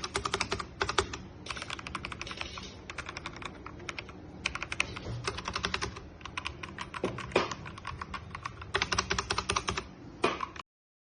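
ZIYOU K3 mechanical keyboard with linear red switches being typed on rapidly in bursts of fast keystrokes, a little noisy. The clicking stops suddenly near the end.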